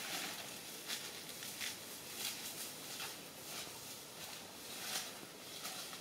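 Footsteps swishing through tall dry grass and brush, a soft rustle about every three-quarters of a second.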